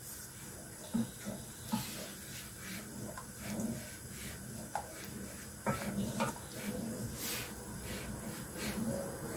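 Wooden spatula stirring thin sauce in a stainless steel pot, with liquid swishing and a few scattered knocks of the spatula against the pot, the sharpest about six seconds in.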